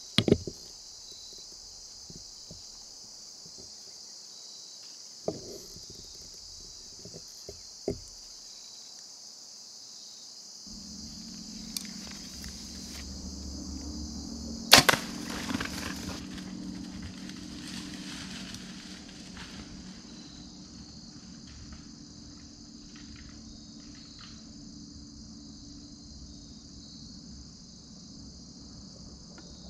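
A compound bow shot about halfway through: one sharp, loud snap of the release and arrow, followed by a few seconds of fainter rustling. Steady chirring of crickets and other insects runs underneath.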